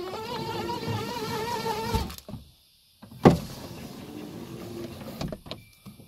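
A truck door's window wound with the manual winder crank: the window regulator gives a wavering whine for about two seconds. After a short break comes a sharp click, then quieter winding.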